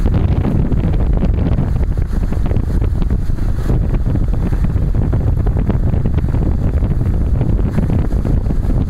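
Wind buffeting the microphone of a moving car, with road noise underneath: a loud, steady low rumble.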